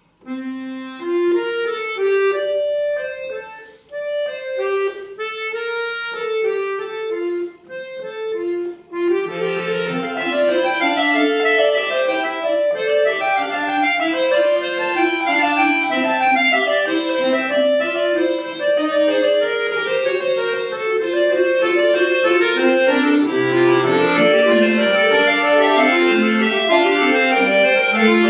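Bayan (chromatic button accordion) played solo: sustained reedy notes begin after silence as a single line in short phrases with brief gaps, then more voices and low bass notes join from about nine seconds in and the playing grows fuller and louder.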